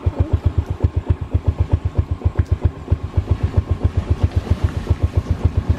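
Motorcycle engine idling close by, a steady low putt-putt of about nine even beats a second.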